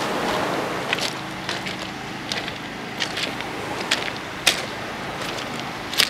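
Seaside ambience on a pebble beach: surf and wind noise with a faint steady low hum, broken by sharp clicks every half second to a second.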